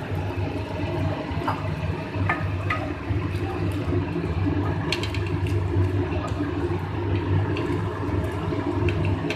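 Thick chickpea-and-pea curry gravy simmering and bubbling in a pan while a wooden spatula stirs it, with scattered light clicks of the spatula against the pan over a steady low hum.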